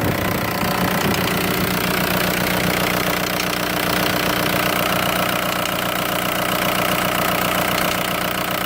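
VW ALH 1.9 TDI four-cylinder diesel engine idling with a steady, rapid ticking. The cause is the cam timing being about one tooth off after a timing belt job.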